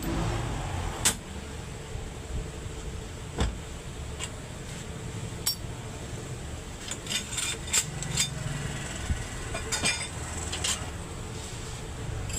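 Scattered metallic clinks and taps, like tools and metal parts being handled, over a steady low running hum, with a small cluster of clinks in the second half.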